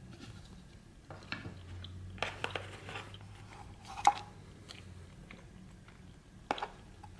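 Hands handling a cardboard box and a plastic sleeve: crinkling and scraping, with a sharp tap about four seconds in (the loudest sound) and another near the end.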